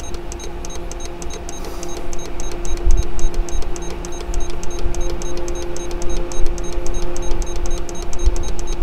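Radio-control transmitter beeping rapidly and evenly, several short high-pitched beeps a second, as the throttle trim is stepped down. A steady low tone sounds underneath.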